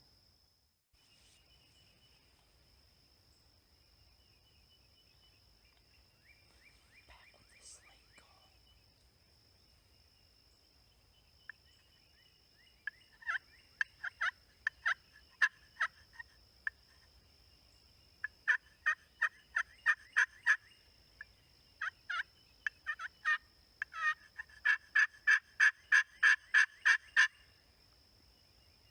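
Turkey yelping: several runs of sharp, evenly repeated yelps, the last run the longest and loudest, with a steady high insect whine underneath.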